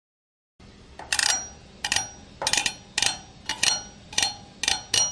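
A series of about eight sharp clinks, roughly one every half second, each with a short high ring, like small hard metal or glass objects being struck together.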